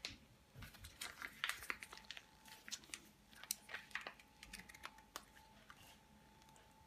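Faint, irregular crinkling and clicking of a soft plastic jam pouch being squeezed out onto a sponge cake, with a faint steady tone underneath.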